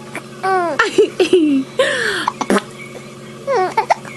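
A baby giggling and cooing in short high-pitched bursts, broken by a few sharp hiccups.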